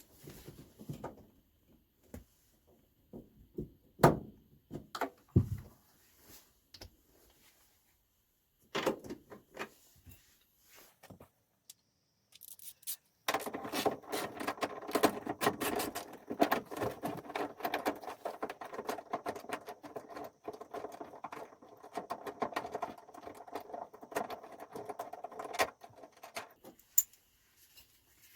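A seat belt anchor bolt being worked loose with a ratchet wrench: scattered metal knocks and clinks, then, about 13 seconds in, a long run of rapid ratchet clicking that stops a couple of seconds before the end.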